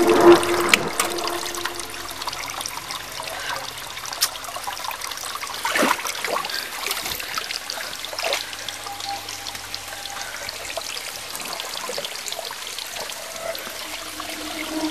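Water trickling steadily, with scattered clicks and knocks that are loudest in the first second, and a falling whistle-like glide about six seconds in.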